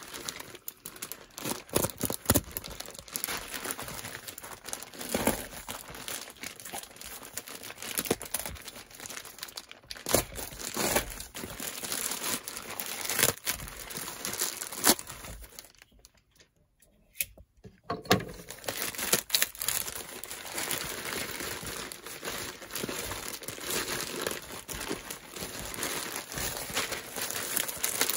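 Packaging being handled and crinkled, with irregular clicks and rustles and some tearing. There is a short pause about two-thirds of the way through.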